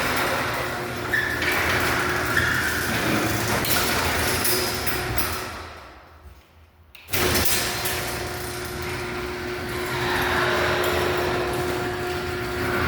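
LiftMaster 1245 garage door opener running and moving the door, a steady mechanical rumble with a faint hum and scattered knocks. It winds down to a stop about six seconds in, then starts up again abruptly about a second later.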